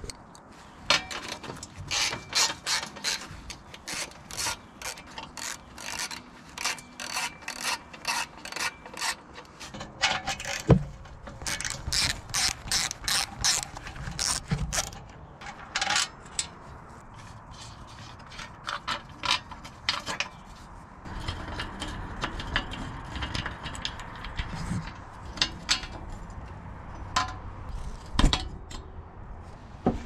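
Hand ratchet wrench clicking in runs of quick strokes, about two to three clicks a second, stopping and starting, with a couple of heavier metal clunks between.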